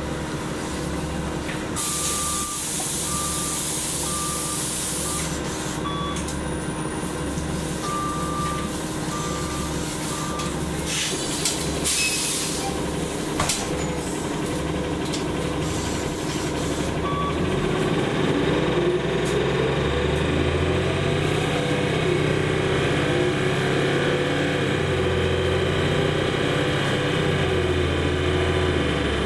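Inside an Orion VII NG CNG transit bus: a burst of air hiss with a repeated short warning beep. A second hiss follows, then from about halfway through the Cummins ISL-G natural-gas engine runs up as the bus pulls away, its pitch rising.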